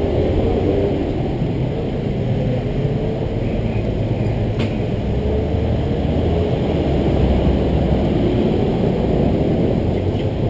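Steady street traffic: car and motorbike engines running and passing, their pitch drifting up and down. A single sharp click comes about four and a half seconds in.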